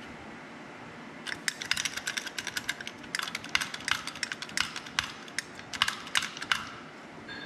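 Rapid, irregular runs of sharp metallic clicks and ticks while a shop press bears down on the gearing of a John Deere torque hub final drive to press it out. The clicking starts about a second in, pauses briefly, and stops shortly before the end.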